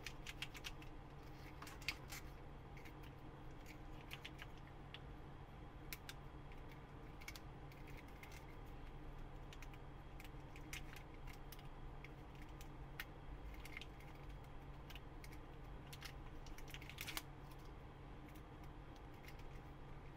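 Fingernails picking and peeling protective plastic film off a plastic action figure's armour: scattered small irregular clicks and crinkles, a couple of them sharper.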